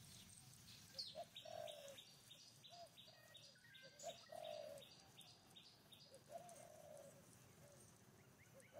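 Faint birdsong in the trees: a bird repeats a short high note about three times a second for several seconds, and soft low arched calls sound about five times.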